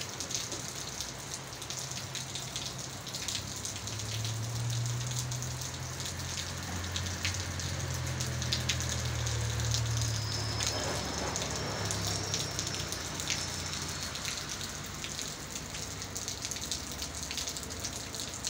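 Steady rain falling on wet pavement and a canopy roof, with scattered sharp drop ticks. A low rumble swells and fades for several seconds in the middle.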